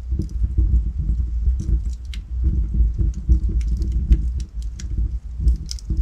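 Logs burning in a fireplace: a steady low rumble of the flames, with frequent, irregular sharp crackles and pops from the firewood.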